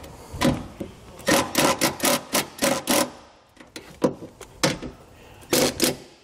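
Cordless impact driver driving self-tapping screws into the sheet-metal panel beside the battery, in several short bursts of rapid mechanical clatter. The longest burst runs from about one to three seconds in, and shorter ones come near the end.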